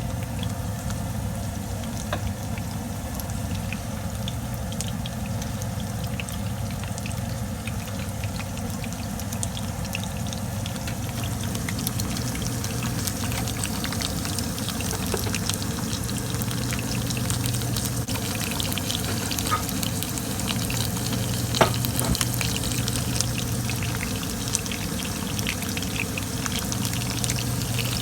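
Battered pufferfish (fugu) karaage deep-frying in hot oil: a steady sizzle dotted with crackling pops, a few sharper pops about two-thirds of the way through, over a steady low hum.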